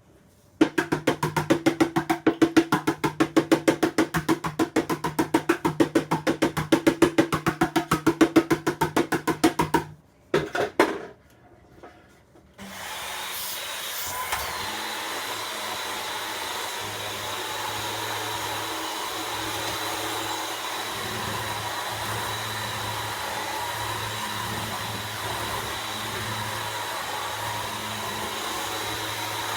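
A loud, rapid rhythmic pulsing, about five or six beats a second over a steady low hum, stops abruptly about ten seconds in. From about twelve seconds in, an electric appliance motor runs with a steady whir and a high whine.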